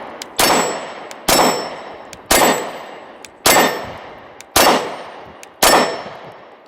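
Glock 23 Gen 4 pistol firing .40 S&W, six shots at a steady pace of a little more than one a second, each crack trailing off in a long ringing echo.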